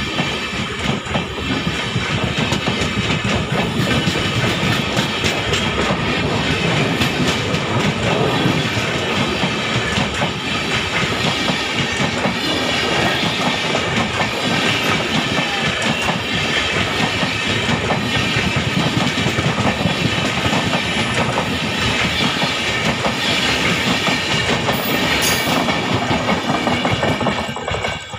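LHB passenger coaches of an express train rolling past: a steady, loud rumble of steel wheels on rail with rapid clickety-clack over the rail joints. The sound drops away sharply near the end as the last coach clears.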